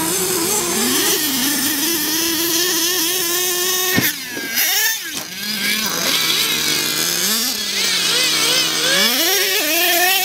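Radio-controlled monster truck's motor running at high revs as it drives across grass. A sharp knock comes about four seconds in, the revs then drop lower for a few seconds, and they climb back up near the end.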